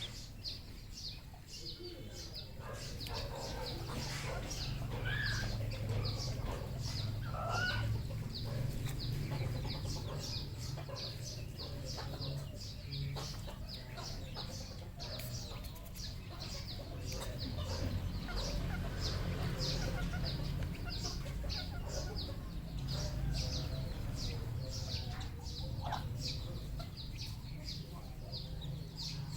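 Red junglefowl clucking and calling, with a few short rising calls, over a dense run of short high chirps and a steady low rumble.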